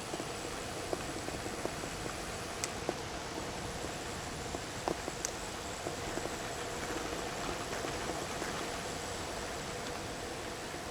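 Steady rushing noise with scattered faint clicks and ticks.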